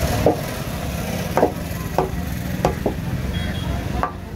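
Large knife chopping a raw tuna loin into chunks on a wooden cutting board: about six sharp, irregular knocks of the blade striking the wood, over steady background noise.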